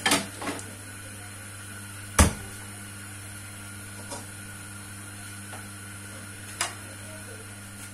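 Kitchen stovetop sounds: a steady low hum with a few sharp clicks and knocks, the loudest about two seconds in, while cumin seeds heat in oil in an aluminium karahi for a tadka.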